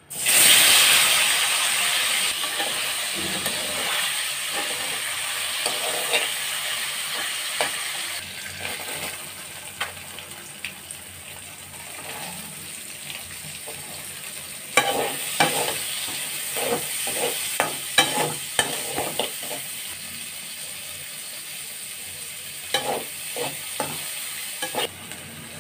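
Sliced onions and green chillies hit hot oil in a wok and sizzle loudly at once, the sizzle easing over the following seconds. Later a spatula scrapes and knocks against the pan in quick stirring strokes, in two spells.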